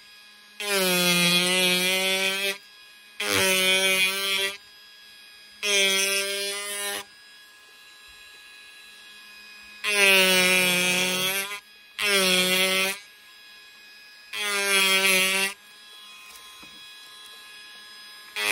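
Automach HCT30 reciprocating power chisel cutting into basswood in six short bursts, each a loud buzzing tone that dips slightly in pitch as the blade bites, with a faint hum in the pauses between cuts.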